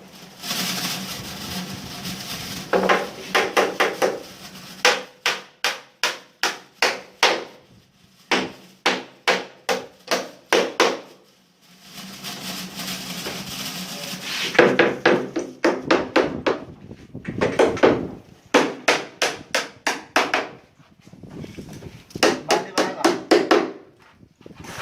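Hammer striking wood in runs of quick blows, about two to three a second, with short pauses between runs: carpentry work such as nailing.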